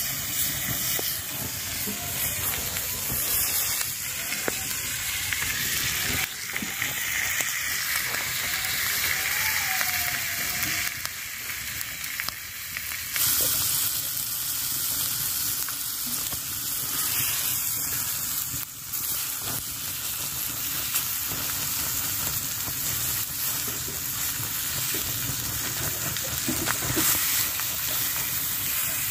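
Pieces of spice-marinated fish sizzling steadily as they fry in oil in a pan over a wood fire.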